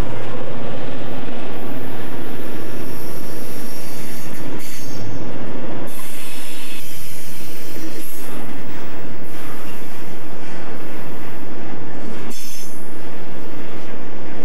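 Double-stack container well cars of a freight train rolling past close by, steel wheels rumbling on the rails. High wheel squeal cuts in briefly about five seconds in and again near the end as the cars take the curve.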